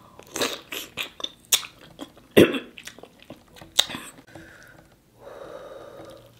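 Close-miked wet eating sounds: biting, sucking and smacking on a sauce-coated king crab leg, a string of sharp wet smacks over the first four seconds, the loudest about two and a half seconds in. Near the end comes a softer, steady sound lasting about a second.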